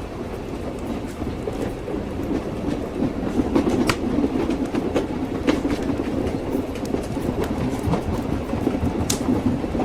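Train wheels clattering over the rails: the steady rumble of a moving railway carriage, with a few sharp clicks standing out above it.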